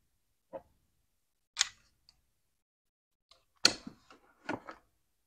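Short clicks and knocks of a Milwaukee M12 cordless drill being handled and its belt clip hooked onto the tote's steel tape clip. The loudest is a sharp clack with a brief rattle after it, about three and a half seconds in.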